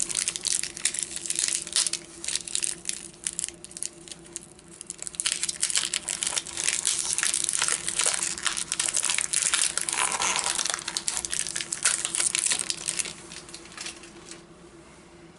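Wrapper of a vintage hockey card pack being crinkled, crumpled and torn open by hand: a dense run of crackling that dies down near the end, over a steady low hum.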